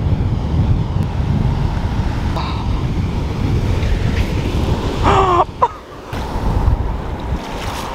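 Ocean surf breaking and washing up the sand, with wind buffeting the microphone. About five seconds in, a short pitched cry that bends in pitch.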